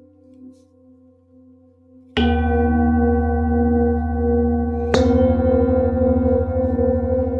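Large singing bowls struck with a felt-headed mallet, twice: about two seconds in and again about five seconds in. Each strike rings on in several steady overlapping tones with a slow wavering pulse, over the fading hum of an earlier strike.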